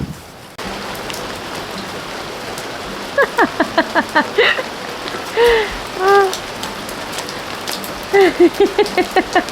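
Steady rain falling. Over it come short, high whining calls: a quick run of them about three seconds in, two longer arched ones near the middle, and another quick run near the end.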